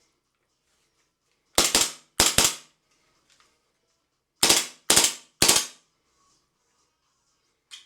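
Sharp plastic clacks of a Glock 17 magazine snapped into and pulled out of a 3D-printed magazine pouch: two quick double clacks about a second and a half in, then three single clacks about half a second apart in the middle.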